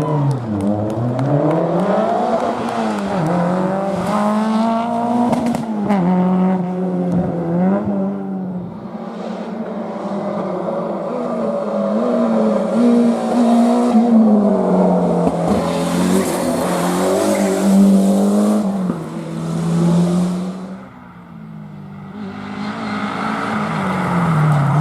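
Historic rally car engine revving hard, the pitch climbing and dropping again and again as it shifts and brakes through a stage. About halfway through, a hissing rush of tyre noise joins it for a few seconds; near the end the engine briefly falls quieter, then revs up again.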